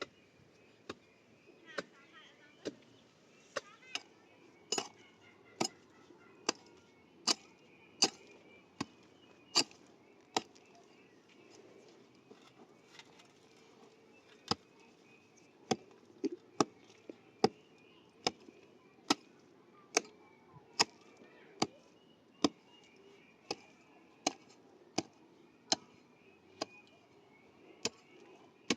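A hand tool striking over and over, sharp blows a little under one a second. The blows pause for about four seconds midway and then resume at the same pace.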